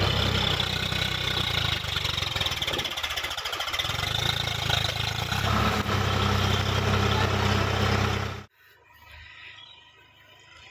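Swaraj 855 FE tractor's three-cylinder diesel engine running loud under load as the tractor climbs a muddy bank. The low engine note thins about three seconds in and comes back strongly about five and a half seconds in. The sound cuts off suddenly about eight and a half seconds in, leaving faint outdoor background.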